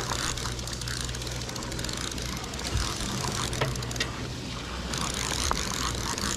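Sportfishing boat's engine running steadily, a constant low hum under wind and sea noise.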